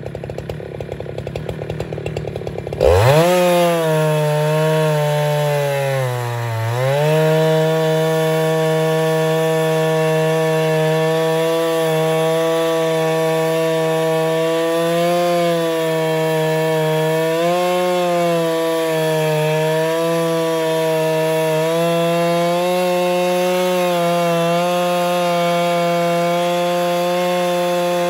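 Husqvarna 395XP two-stroke chainsaw on an Alaskan chainsaw mill, idling for about three seconds and then throttled up sharply. Its pitch sags briefly a few seconds later, then it runs steadily at full throttle, wavering slightly, as it rips lengthwise through a fir log.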